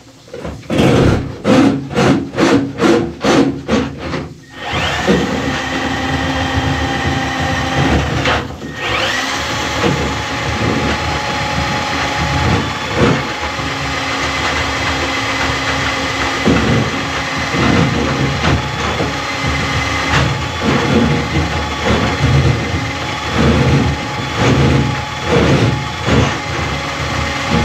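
Milwaukee M12 cordless drain snake spinning a bulb-head cable down a clogged bathtub drain. It opens with a quick run of regular knocks, about three a second, then runs steadily with a whine that wavers as the cable works into the blockage. The sound dips briefly about eight seconds in.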